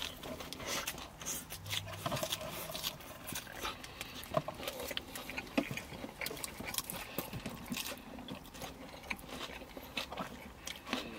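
Close-up eating sounds from two people: chewing, smacking mouth noises and bites, with irregular small clicks and crinkles from a paper burger wrapper and a fork in a cardboard salad box.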